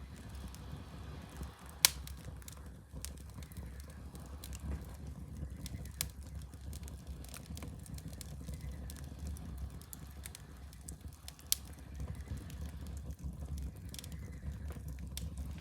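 Fire crackling in a fireplace: scattered sharp pops and snaps over a steady low rumble, with two louder pops about 2 seconds and 11.5 seconds in.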